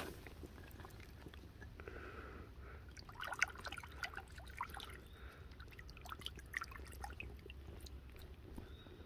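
Shallow creek water splashing and trickling as a hand swishes a small crinoid stem fossil in it, with scattered light clicks, the sharpest about three and a half seconds in.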